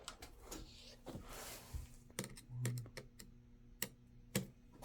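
Scattered small clicks and taps from handling laptop parts and tools, with a short scraping rustle about a second in.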